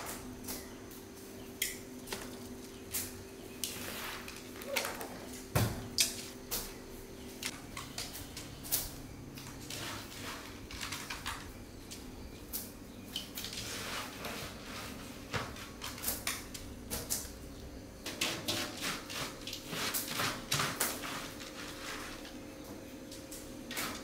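Irregular clinks and knocks of things being handled, several in quick runs at times, over a steady faint hum.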